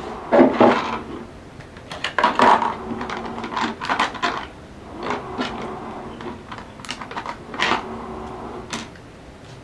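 Plastic packaging and press-on nails being handled: irregular clicks and short crinkling rustles.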